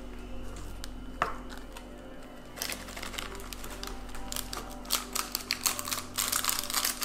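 A single scissor snip, then from about two and a half seconds in a quick run of light taps and ticks as glitter is tapped out of a cut plastic sachet into a plastic slime shaker.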